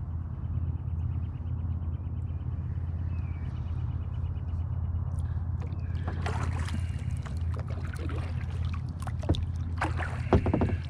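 Kayak on the water: a steady low rumble of wind on the microphone with a faint rapid ticking in the first half, then water splashing and a series of knocks against the kayak, the loudest two near the end.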